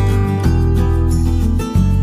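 Background music led by guitar, playing steadily with the bass notes changing about every second.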